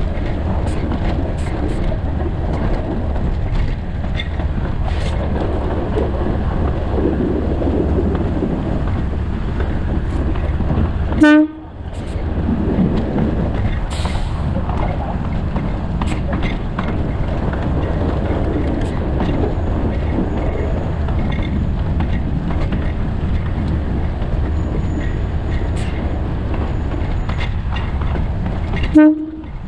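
Alishan Forest Railway train running along narrow-gauge track, a steady rumble with light wheel clatter over the rails. Two short, loud horn toots sound, about a third of the way in and again near the end, each followed by a brief drop in the running noise.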